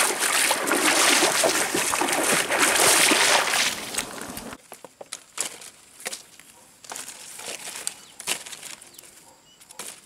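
Feet splashing and sloshing through shallow stream water for about four and a half seconds, then an abrupt change to quieter, scattered snaps and rustles of dry sticks and bamboo being handled and laid for a fire.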